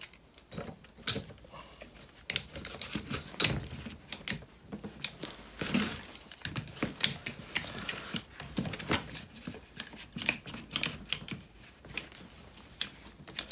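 One-handed trigger bar clamps being ratcheted, giving an irregular run of sharp clicks and knocks. They are pressing a rubber anti-roll bar bush into its drop link in a jig.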